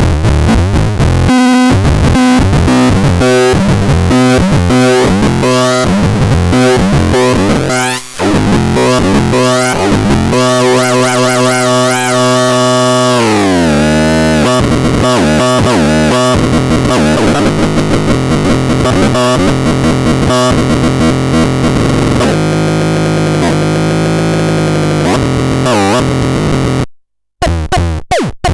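Loud, distorted electronic synthesizer tones: fast pulsing notes, a pitch that slides down about halfway through, then held buzzing tones that cut out suddenly near the end, followed by short stuttering blips.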